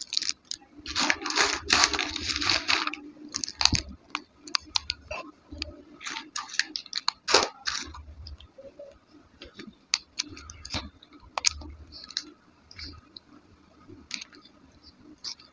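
Chalk sticks and clay lumps crunching as they are crumbled by hand and dropped into a glass bowl of wet clay. It is dense for the first three seconds or so, then thins to scattered clicks and crackles as pieces and a spoon knock against the glass.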